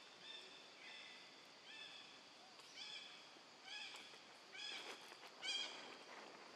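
Short, high, clear animal calls repeated about once a second, faint, growing louder and more run together about five seconds in.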